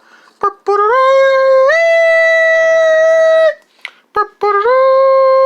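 A person singing long, wordless high notes. Each note climbs in a step or two and then holds steady for a couple of seconds, with a short break between the two phrases.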